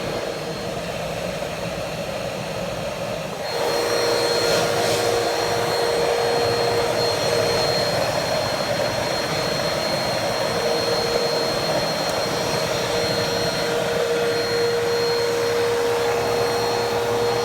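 Vacuum cleaner running steadily with a whining motor tone; it gets louder about three and a half seconds in and holds there.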